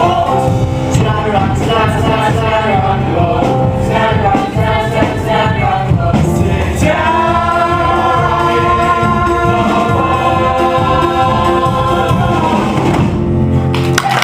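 Ensemble chorus singing the finale of a show tune with instrumental backing, building to a long held final chord about halfway through that cuts off sharply just before the end.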